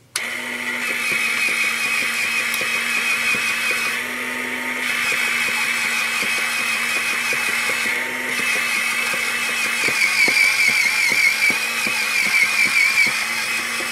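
Secure-Shred paper shredder switched on, its motor running with a steady hum and a high whine while cardboard trading cards are fed in and cut up. The cutting gets louder and pulses in the later seconds.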